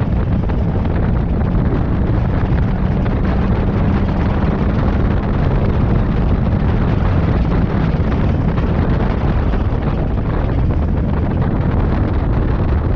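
Wind buffeting the microphone on a moving motorcycle, a loud steady roar, with the motorcycle engine running underneath.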